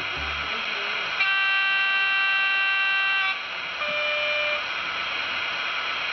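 Model diesel locomotive's DCC sound decoder sounding a two-tone horn through its small speaker: one long higher note, then a shorter lower note, over a steady hiss.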